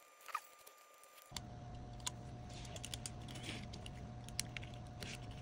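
Faint clicks, taps and light scraping of fingers handling a dashcam's plastic housing and small internal parts while fitting them back together. A faint steady hum comes in about a second in.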